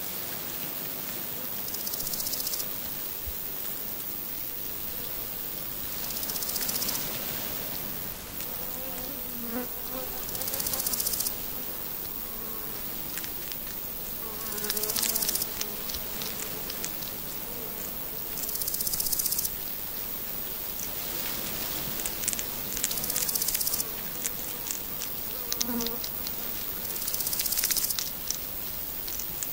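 An insect's high, dry buzzing song in bursts of about a second, repeating roughly every four seconds, with small clicks and crunches from baby hedgehogs chewing their food.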